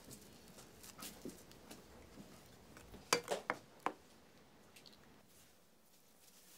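A wooden spoon knocking and scraping against an enamel bowl as a man eats soup: a few faint clinks about a second in, then a cluster of sharper clicks around three seconds in.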